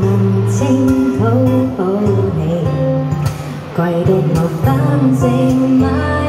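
A woman singing a Cantonese pop song live into a handheld microphone, accompanied by an acoustic guitar.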